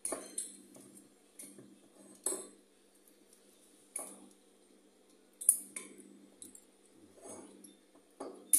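Cutlery and dishes clinking: scattered sharp clicks and knocks, irregularly spaced, the loudest about five and a half seconds in and another just before the end.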